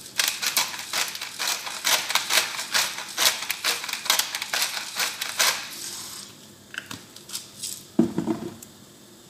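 Black pepper grinder being twisted over a frying pan: a rapid run of gritty cracking clicks for about five and a half seconds, then a single thump about eight seconds in.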